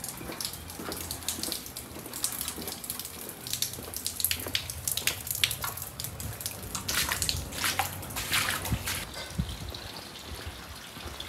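Wellington boots wading through shallow floodwater: irregular splashes, thickest in the middle and thinning out near the end, with rain dripping onto the flooded street.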